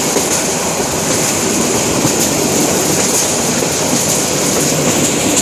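Passenger train running steadily: continuous rumble and rattle of the carriages on the track, with a steady high hiss.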